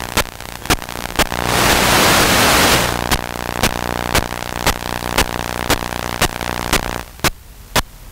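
Sharp clicks repeating evenly about twice a second over a steady low hum, with a loud rush of hiss lasting about a second, starting about a second and a half in.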